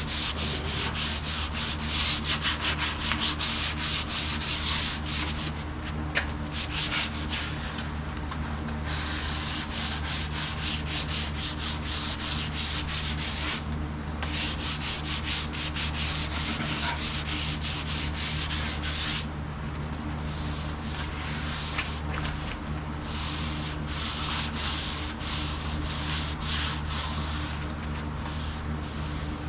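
A folded Scotch-Brite pad rubbed by hand back and forth over a vehicle's body panel, hand sanding in a run of quick strokes. There are short breaks about 14 and 20 seconds in, and a steady low hum runs underneath.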